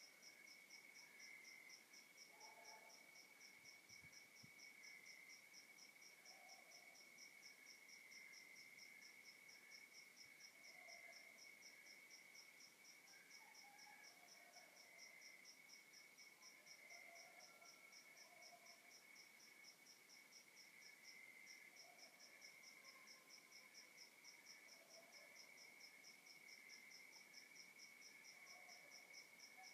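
Faint night chorus of crickets and other insects: a steady high trill over a faster pulsing chirp about three times a second, with soft lower calls every couple of seconds.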